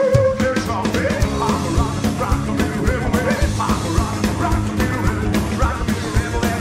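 Live rockabilly band playing: electric and acoustic guitars over upright double bass and a drum kit, with a steady driving beat.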